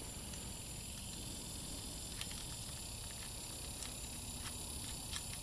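A few faint, light clicks of small bolt pieces being worked into a Lyne Holy Rail bottle-cage rail. Behind them is a steady high-pitched drone of insects.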